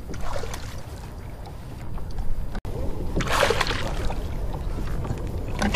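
Water splashing and sloshing beside a kayak as a hooked fish is played alongside, loudest about three seconds in, over a steady low wind rumble on the microphone.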